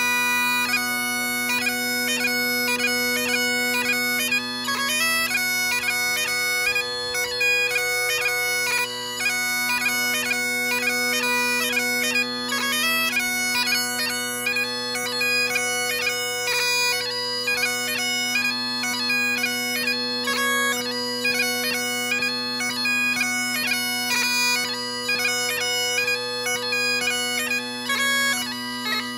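Solo Great Highland bagpipe playing without a break: the drones hold a steady low chord under the chanter's quickly changing melody.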